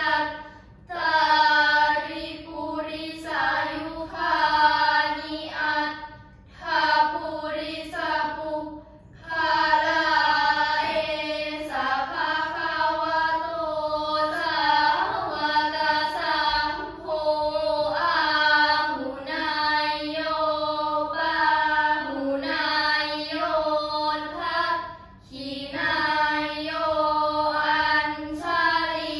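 A group of schoolgirls chanting Buddhist prayers together, in a melodic chant whose pitch rises and falls, delivered in phrases with short breaks for breath between them.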